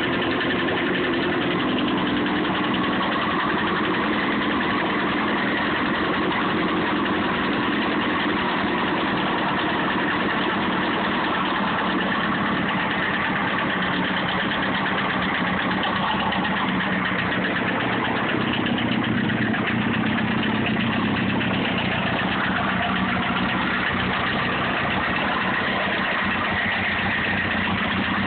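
Honda CBR954RR inline-four engine idling steadily, with a knocking, ticking noise whose cause the owner does not know.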